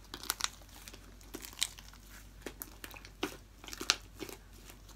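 Homemade slime being squeezed and stretched between the hands, giving faint, scattered small clicks and crackles as air bubbles in it pop.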